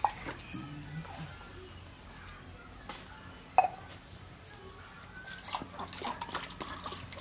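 Small clicks and taps of eating by hand from a steel plate, with one sharp tap about three and a half seconds in and a run of small clicks near the end.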